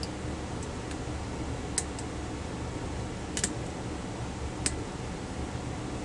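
Small metallic clicks of a lock pick working the pin tumblers of an American 1105 padlock: a single click, a quick double click and another single click, spaced a second or more apart, over a steady low hum.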